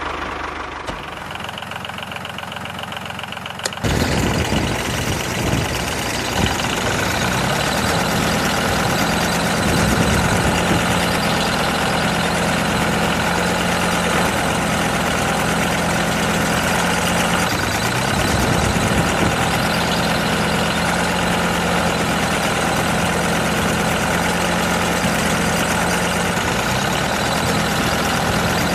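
A motor starts up about four seconds in and then runs steadily at a constant pitch, like an engine idling.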